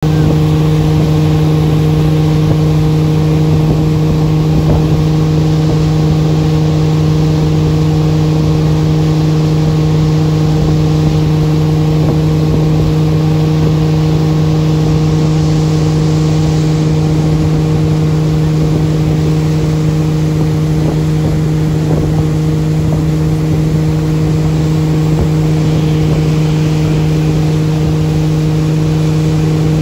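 Winner Escape ski boat's engine running at a steady towing speed, one constant drone that holds its pitch throughout.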